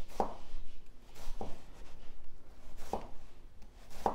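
Hedley & Bennett chef's knife dicing an onion on a bamboo cutting board. The blade knocks on the board four times, about every second and a half, with fainter slicing strokes through the onion between the knocks. The knife is slicing through easily, a sign of a sharp edge.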